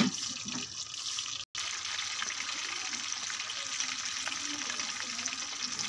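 Fish pieces in a rice-flour and gram-flour batter deep-frying in hot oil in a steel kadhai: a steady sizzle with fine crackling.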